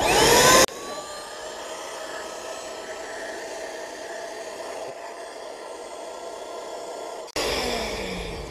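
Sparrow Yellow Pump electric air pump switched on and spinning up with a rising whine, then running with a steady whir as it sucks the air out of a self-inflating camping mat. Near the end its pitch falls away as it winds down.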